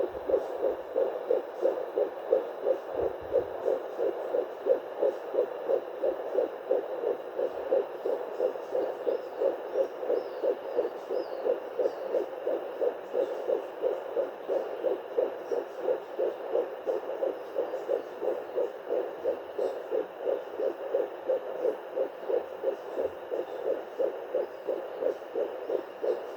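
Fetal heartbeat at 11 weeks 3 days of pregnancy, played through a Quirumed pocket fetal doppler's speaker. It is a rapid, even pulse of about two and a half beats a second.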